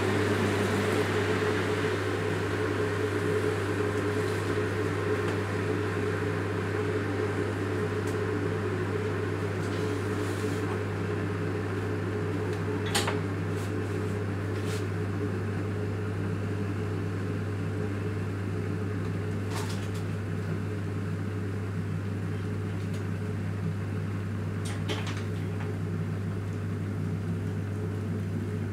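Steady, layered electrical hum of household appliances running, a low drone with several steady tones above it, broken by a few faint clicks.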